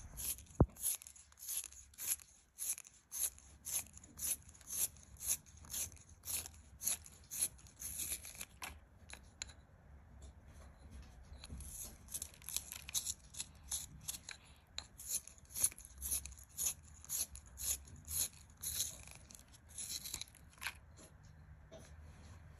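Metal hand-held pencil sharpener shaving a wooden pencil: a rhythmic, high-pitched scrape with each twist of the pencil, about two a second, thinning out for a couple of seconds midway before picking up again. One sharp click about half a second in.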